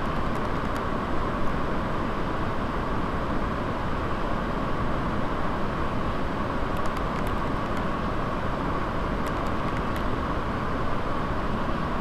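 Swollen forest stream rushing and splashing over rocks: a steady, unbroken noise of white water.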